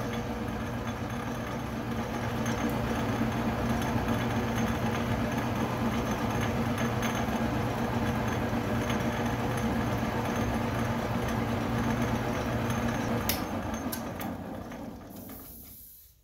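Atlas metal lathe running, its belt-driven spindle turning a 4-jaw chuck with a steady hum. About 13 seconds in there is a click, then the lathe coasts down and stops.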